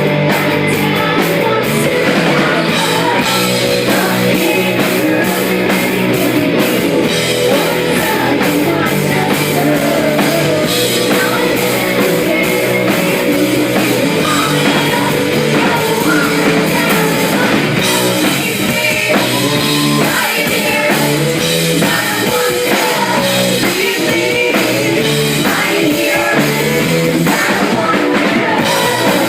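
Rock band playing live: distorted electric guitars and a drum kit, loud and steady without a break.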